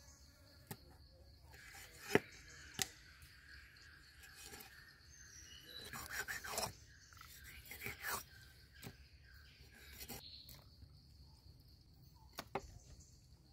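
Cleaver cutting fish on a wooden chopping board: a few sharp knocks of the blade on the board, the two loudest about two seconds in and one near the end, with short scraping cuts through the fish in between.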